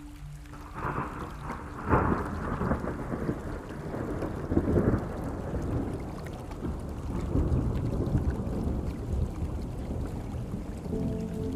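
Thunder cracks about a second in and rumbles on over steady rain, with a second loud peak a few seconds later. Soft sustained music notes come back in near the end.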